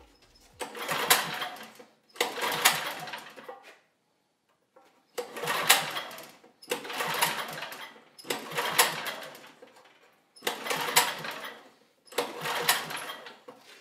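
Recoil starter rope pulled seven times on a freshly rebuilt 1974 Tecumseh HT35 3.5 hp engine. Each pull spins the engine over with a quick clatter for about a second that dies away without the engine catching.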